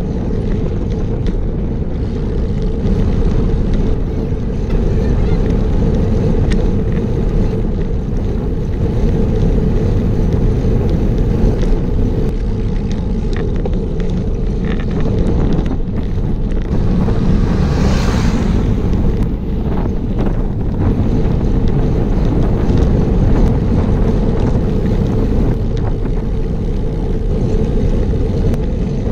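Wind rumbling and buffeting on a bike-mounted action camera's microphone while riding at about 25 km/h, steady and low throughout. About 18 seconds in, a brief hiss swells and fades.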